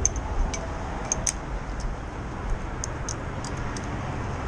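Light metallic clicks and clinks, about a dozen at irregular intervals, from small metal tools or parts being handled, over a steady low rumble.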